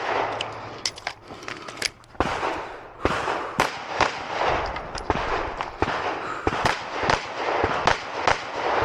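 A 9mm Glock 45 pistol fired in quick strings of shots, mostly in rapid pairs, with a short lull about two seconds in before firing resumes at a steady pace.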